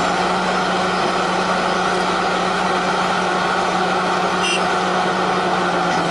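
Hidromek backhoe loader's diesel engine running steadily at an unchanging speed, an even hum with no revving.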